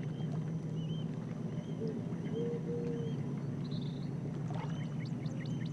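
Steady low drone with faint, scattered bird chirps and a couple of short low held notes; a quick flurry of chirps comes near the end.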